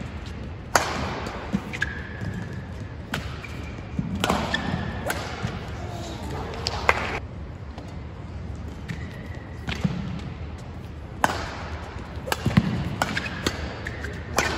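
Badminton rally: sharp cracks of rackets striking the shuttlecock every second or two, with players' shoes squeaking on the court mat and the thud of footfalls.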